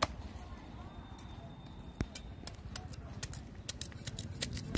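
Cleaver chopping into a bamboo shoot held upright on a wooden block, sharp knocks as the husk is hacked off: one at the start, another about two seconds in, then a quick run of chops in the last two seconds.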